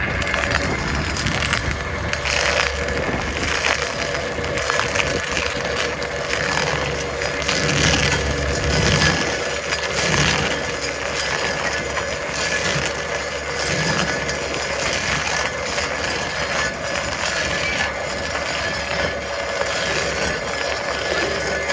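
Drill Master stump grinder running and cutting into a tree stump: a steady machine hum with a held high tone, overlaid by irregular grinding and crunching of wood.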